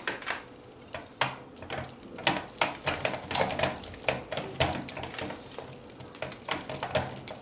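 Silicone whisk beating thick vanilla pudding and labneh in a granite-coated saucepan: irregular clicks and scrapes of the wires against the pan, several a second.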